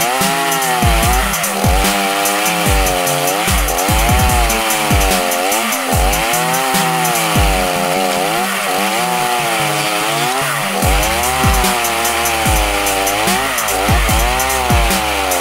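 Two-stroke chainsaw engine driving a homemade stump-grinder cutter into a tree stump. The engine pitch sags and recovers about once a second as the knives bite into the wood and throw out chips.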